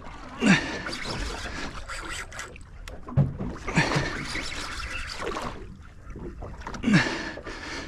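Water splashing and sloshing around a small boat in uneven bursts, with wind on the microphone.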